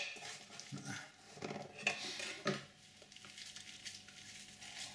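Faint squishing and soft knocks of hands working a cold mashed-potato and vegetable mixture in a bowl. There are a few short, uneven sounds in the first half, then quieter scattered clicks.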